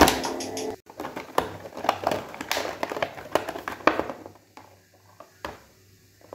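Thin clear plastic blister tray crinkling and clicking as an action figure is pulled free of it: irregular crackles and clicks for a few seconds, then nearly quiet apart from a single click.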